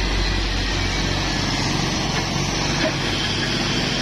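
Heavy diesel truck engine running steadily under load as a lowboy truck hauling an excavator pulls up a hill grade.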